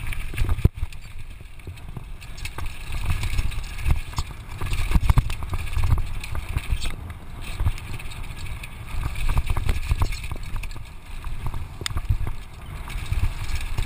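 Downhill mountain bike ridden fast over a dirt trail: a heavy rumble of wind on the microphone, with rattles and knocks from the bike and tyres over bumps and loose stones.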